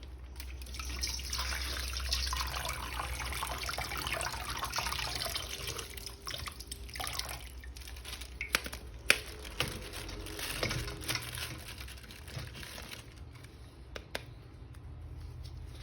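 Water running and splashing, louder in the first half, with a few sharp clicks about two-thirds of the way in.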